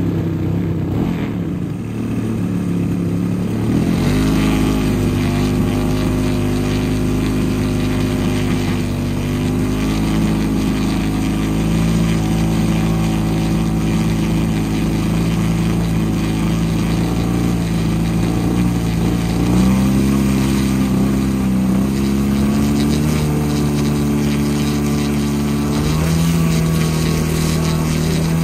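Engine of a 3-metre Giles 202 RC model plane running steadily at low throttle, close up, after being hand-started by flipping the propeller. Its pitch steps up or down to a new steady level a few times as the throttle is moved.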